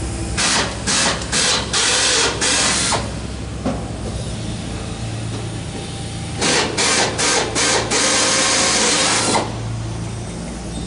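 Pneumatic air tool run in bursts: a few quick blips of the trigger, then longer runs, in two groups about three seconds apart. A steady low hum lies underneath.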